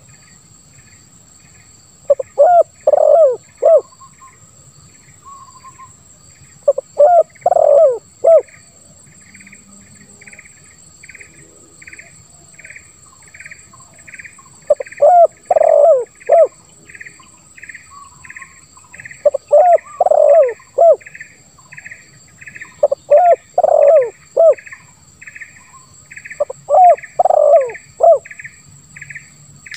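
Spotted dove (tekukur) cooing, six phrases of four or five short notes each, repeated every few seconds. Under it, insects chirp steadily at about two pulses a second over a constant high buzz.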